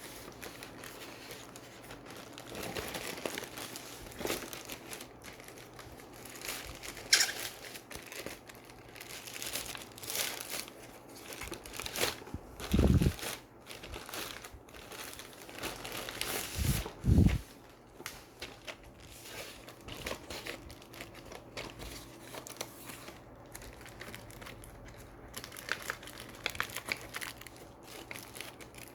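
Packaging crinkling and tearing as it is handled and opened, with three dull thumps about halfway through.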